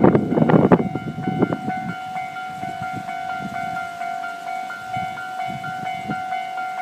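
Railway level-crossing warning bell ringing over and over in a steady pitch. A loud low rumble dies away in the first two seconds.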